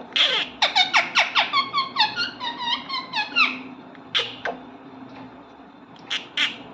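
Parrot calling with short, squeaky chirps: a quick run of calls that slide down in pitch, about five a second, then after about three and a half seconds only a few scattered calls.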